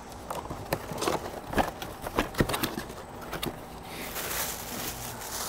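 Cardboard packaging being rummaged through in a shipping box: a quick run of irregular knocks, taps and scrapes, then from about four seconds in the crinkling rustle of a plastic bag of parts being handled.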